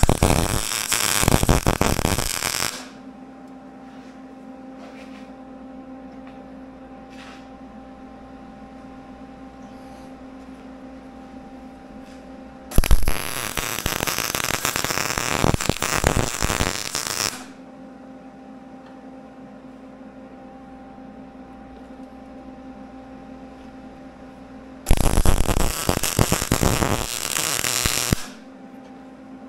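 Electric arc welding on steel: three welding passes, each a loud, even crackling sizzle lasting about three to four and a half seconds that starts and stops sharply. Between the passes a steady electrical hum carries on.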